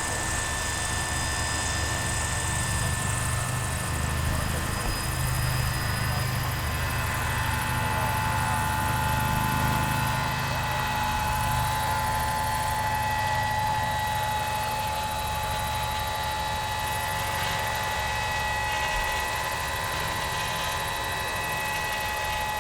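Radio-controlled model helicopter flying: a steady whine from its motor and drive, over a low, fast rotor chop.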